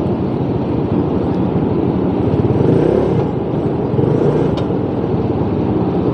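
Motorcycle engine idling steadily while stopped in traffic, a low, rapid pulsing, with other vehicles' engines around it.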